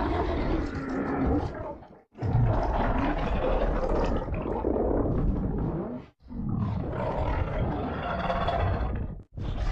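Monster roar sound effects: several long, rough roars in a row, each a few seconds long, separated by abrupt breaks about two and six seconds in and just after nine seconds.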